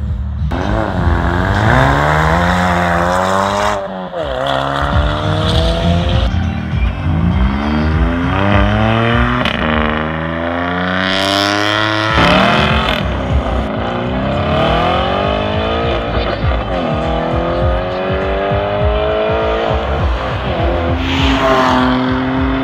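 A performance car engine revving hard, about seven times in a row. Each time the pitch climbs for two to three seconds and then drops sharply, as in hard acceleration or drifting, with some tyre squeal.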